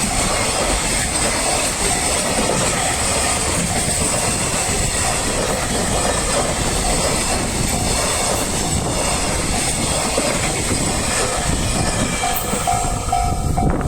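Freight train rolling through a level crossing, its wheels clacking over the rail joints. Underneath, the crossing's warning bell rings in an even beat of about two to three strokes a second, coming through clearly near the end.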